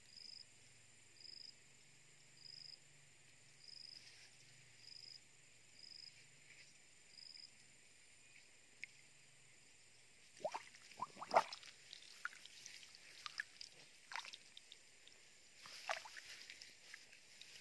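Hands splashing and squelching in a shallow muddy water hole, in irregular sudden bursts starting about ten seconds in. Before that, a faint short high chirp repeats about once a second, typical of an insect.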